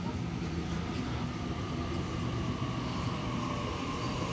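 Sydney Trains Waratah double-deck electric train running along the platform close by, with a steady rumble of wheels on rails and a steady whine.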